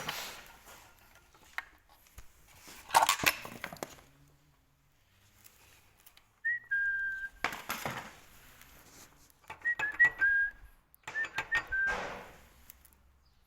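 Short, high whistle-like chirps come singly and then in quick clusters, each dropping slightly in pitch and held briefly. They fall between a few brief bursts of clattering noise.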